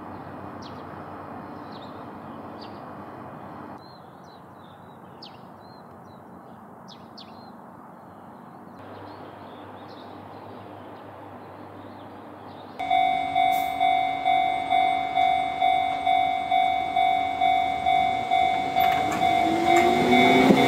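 Quiet ambience with a few faint chirps, then about 13 s in a Japanese railway level-crossing bell starts, ringing at an even pulse of about two and a half strikes a second. Near the end a Fujikyu 6000 series electric train (ex-JR East 205 series, MT61 motors) begins to pull away, its motor whine rising in pitch.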